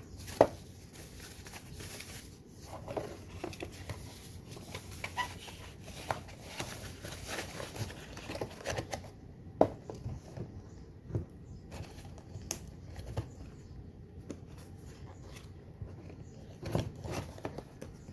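Packaging rustling and light clicks and taps as small plastic parts are handled. The rustling is busy for about the first half, then gives way to scattered clicks.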